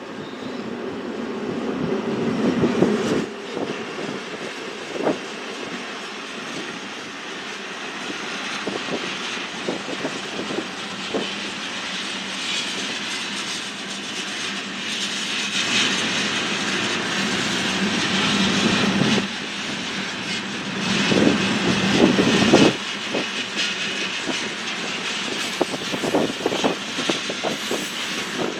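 Train rolling past: steady wheel-on-rail noise with scattered knocks, swelling near the start and again in the later part.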